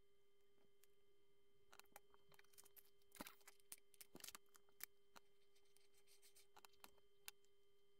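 Faint, scattered clicks and light rattles of small plastic Lego pieces, picked from a plastic tub and set down, with a cluster of clicks in the middle, over a faint steady hum.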